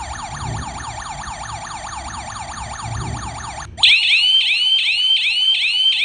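Burglar alarm siren sounding: a rapid falling whoop repeating about four to five times a second, switching about four seconds in to a louder, higher-pitched sweeping tone.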